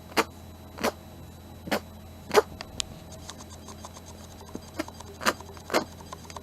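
A sneezing fit: a quick run of short, sharp sneezes, several within a few seconds at uneven spacing, the loudest about two and a half seconds in.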